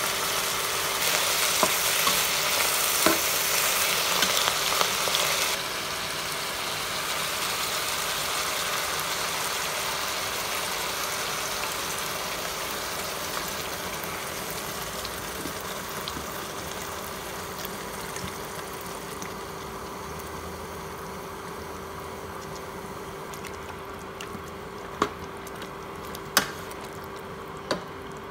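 Chicken, broccoli and mushrooms sizzling in a frying pan. The sizzle is strongest for the first few seconds, then fades steadily as cream is added. A steady hum runs underneath, and a spatula knocks against the pan three times near the end.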